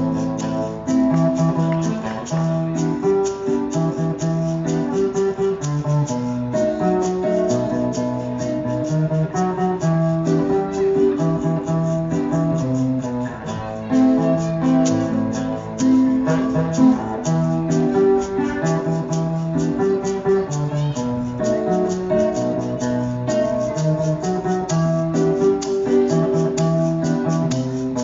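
Guitar playing a steady, repeating instrumental introduction to a song, picked note by note in a regular rhythm, played live.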